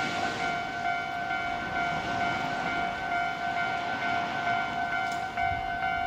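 Japanese railway level-crossing warning bell ringing, a steady repeating electronic ding, sounding while the barriers are down to warn of an approaching train.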